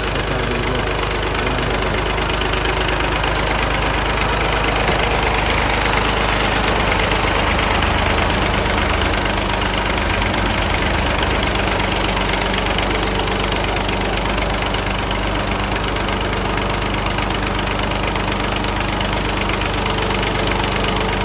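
Massey Ferguson tractor's diesel engine running steadily, driving a brick-making machine through its PTO shaft.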